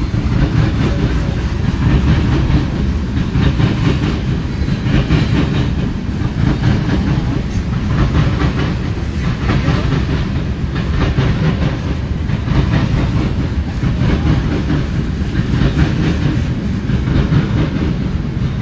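Tank cars of a freight oil train rolling past: a steady rumble with repeated clicks of the wheels passing over rail joints.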